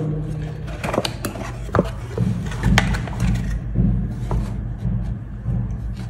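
A small cardboard box being opened by hand: scattered clicks, taps and rustling as the flaps are lifted and the packed plastic parts inside are shifted.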